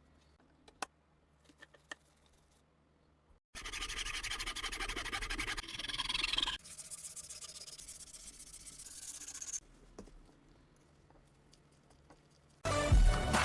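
A few light clicks, then about six seconds of fast, scratchy rubbing strokes from hand work on the pistol's parts, in two stretches. Music starts near the end.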